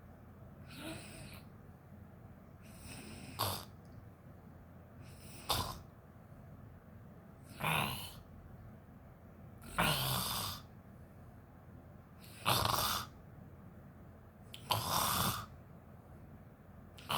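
A woman snoring in her sleep, one rasping snore about every two and a half seconds, seven or so in a row.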